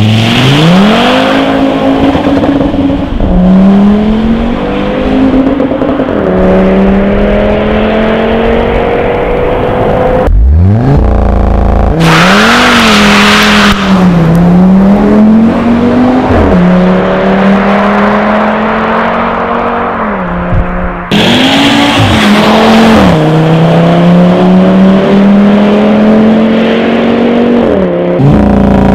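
Audi TT RS's turbocharged five-cylinder engine through the Audi performance exhaust, accelerating hard through the gears: the note climbs, drops at each upshift and climbs again. Several hard runs follow one after another, the first starting from a standstill with the pitch sweeping up from low.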